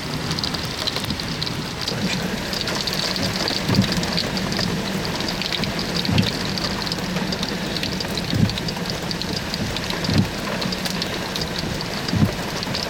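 Rain on a vehicle over a steady low drone, with five dull thumps about two seconds apart.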